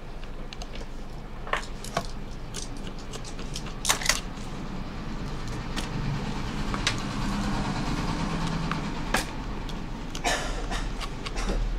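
Scattered light clicks and taps from a small screwdriver and fingers working at the metal side frame of an opened iPhone 6 Plus, over a steady low hum.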